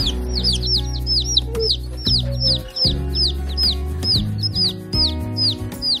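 Baby chicks peeping: a steady run of short, high chirps that each rise then fall in pitch, about three or four a second, over background music.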